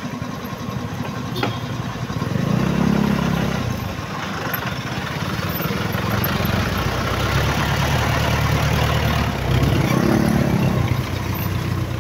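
Motorcycle engine idling, its note rising twice in short revs, about two seconds in and again near ten seconds, with a single sharp click about a second and a half in.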